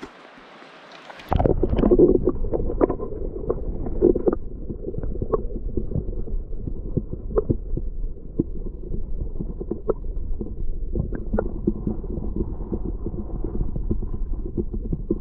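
Flowing river heard from a camera held underwater: a dense, muffled low rumble of the current with scattered clicks and knocks. It replaces the faint airy hiss of the stream above the surface abruptly about a second in, as the camera goes under.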